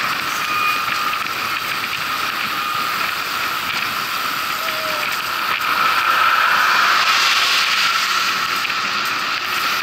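Bicycle freewheel hub ticking steadily as the bike coasts, over tyre and road noise, growing louder for a couple of seconds past the middle.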